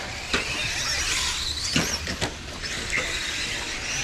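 Electric 2wd RC stadium trucks racing on dirt: a high-pitched motor whine that rises and falls as the trucks speed up and slow down, with several sharp knocks from the trucks on the track.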